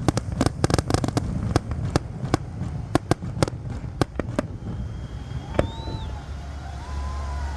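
Fireworks going off: a rapid run of sharp bangs that thins to single reports about every half second, over a continuous low rumble of the display.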